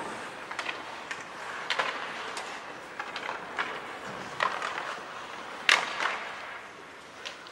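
Ice hockey play: scattered sharp clacks and scrapes from sticks, puck and skates on the ice, with one louder knock a little past halfway.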